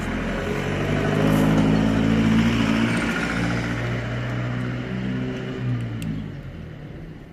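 A motor vehicle's engine passing close by on the street. Its steady drone grows louder to a peak about two seconds in, then fades away near the end.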